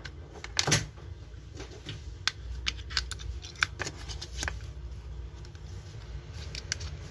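Sharp plastic clicks and taps, scattered irregularly, as a lithium battery is fitted into a mini handheld fan's handle and its snap-on battery cover is handled and pushed back into place.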